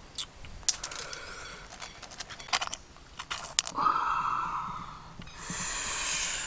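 Cooked clam shells clicking and clinking against each other and the pan as they are picked out by hand, a few sharp clicks in the first half. A longer noisy sound follows about four seconds in and again near the end.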